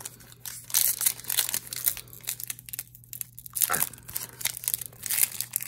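Plastic trading card pack wrapper being torn open and crinkled between the fingers, in a string of short crackling bursts.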